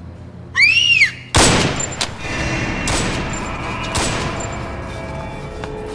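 A brief high cry, then three loud handgun shots about a second or so apart, each with a long echoing tail, as music swells underneath.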